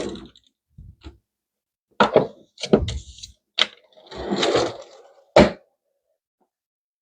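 Kitchen knife chopping an onion on a cutting board: a string of irregular crisp cuts and knocks on the board, with one longer stroke about four seconds in.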